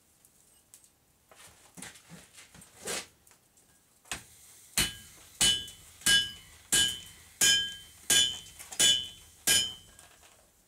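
Hand hammer striking a hot railroad spike on an anvil while forging an axe. There are a few light knocks first, then from about halfway through eight evenly spaced blows, roughly one every two-thirds of a second, each with a short metallic ring.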